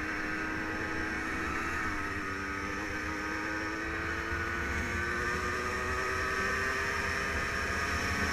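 Yamaha Blaster 200's two-stroke single-cylinder engine running under way. Its pitch dips slightly about two seconds in, then climbs slowly as the quad gains speed, over a steady low rumble.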